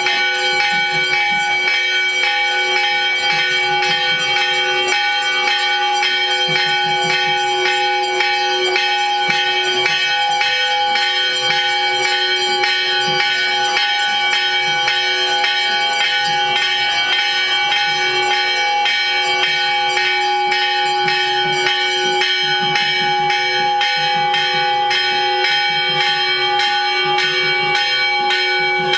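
Temple bells ringing continuously: rapid, even strikes over several steady ringing tones, accompanying a camphor-flame aarathi.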